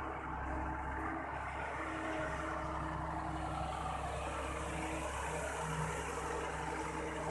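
Dongfeng dump truck's diesel engine running steadily under work, a constant drone with a low hum.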